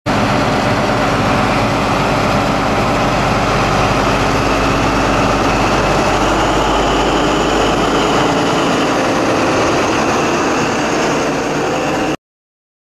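Diesel engine of an HST (InterCity 125) power car running steadily, with held tones over a wide, even noise. The sound cuts off suddenly about twelve seconds in.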